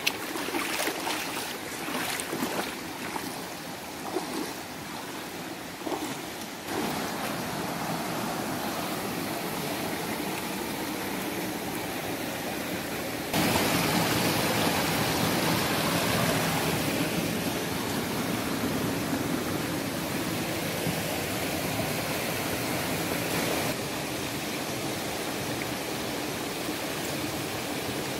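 Shallow rocky river rushing steadily, with feet splashing as they wade through the water during the first several seconds. The rush gets louder about halfway through and drops back near the end.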